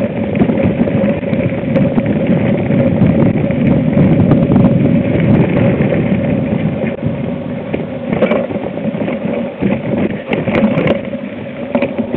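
Off-road vehicle engine running steadily while it is driven over a rough dirt trail, with a constant pitched drone over low rumble and a few sharp knocks near the end.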